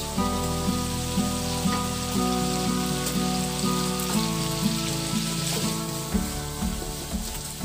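Pork spareribs frying in oil in a wok: a steady sizzling hiss under background music with changing notes and a bass line.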